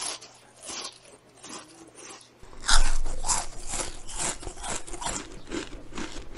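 Rabbit biting and chewing a raw cabbage leaf: a quick run of crisp crunches, about two or three a second, faint at first and louder from about two and a half seconds in.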